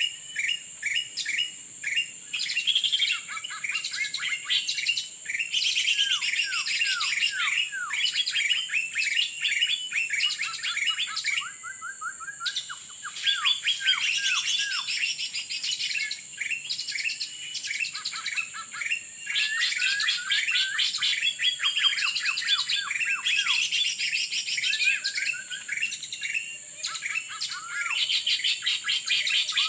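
Songbirds calling busily: rapid chirps and many short falling whistles, with a brief pause about twelve seconds in, over a steady high-pitched tone.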